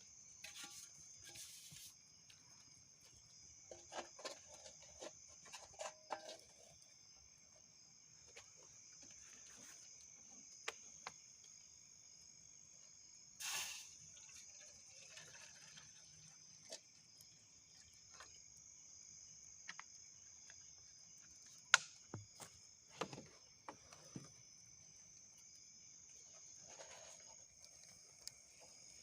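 Steady high-pitched chirring of crickets and other insects, with scattered small clicks and knocks, a brief rustle about halfway and the sharpest click about three quarters of the way through.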